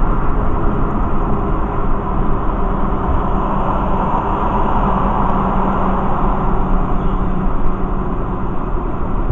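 Steady road and tyre noise with engine hum, heard from inside a car cabin while driving on a highway.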